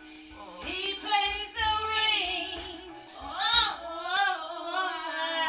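A woman singing solo without accompaniment, holding long notes and sliding up and down between them.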